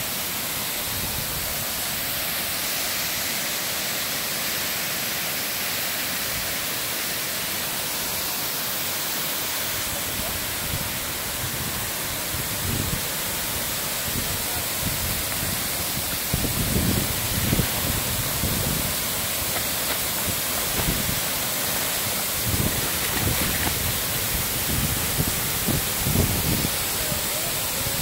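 Steady rushing hiss of a tall waterfall pouring into its pool. From about halfway through, irregular low buffeting hits the microphone close under the falling water.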